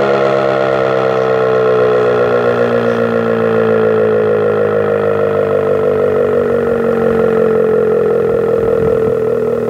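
American Signal RM-127 outdoor warning siren sounding loudly, its tone sliding slowly and steadily lower in pitch as it winds down.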